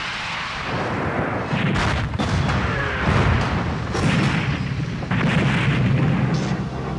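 Explosions from a weapon strike on a ground target: several heavy blasts roughly a second apart over a continuous rumble.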